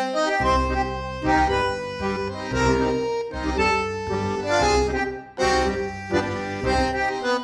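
Tango background music led by a bandoneon, an accordion-type instrument, playing a melody over a rhythmic bass.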